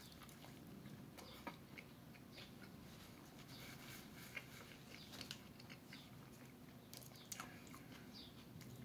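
Faint chewing of a person eating a burrito: soft mouth clicks scattered throughout, a few sharper ones about a second and a half in and again near the end.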